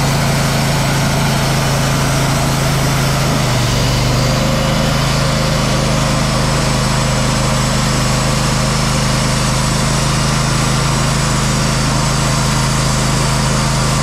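Engine-driven band sawmill running steadily, its blade sawing a board off a red oak log, with a hiss of cutting over the engine note. The engine note shifts slightly about three and a half seconds in.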